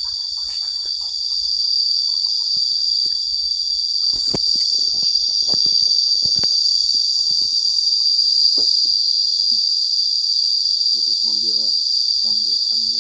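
Loud, steady high-pitched drone of cicadas in the trees, swelling a little about two seconds in. Scattered crunches of footsteps through the undergrowth fall mostly in the middle.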